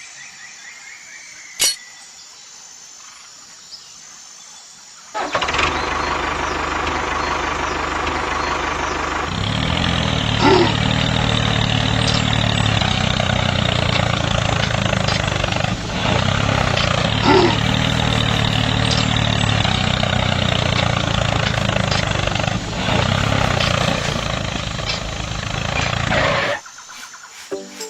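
An engine starts about five seconds in and runs steadily, growing louder a few seconds later, then stops abruptly near the end. A single click comes before it.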